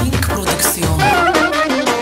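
Loud instrumental dance music in a traditional Middle Eastern style, with a steady beat under a wavering lead melody.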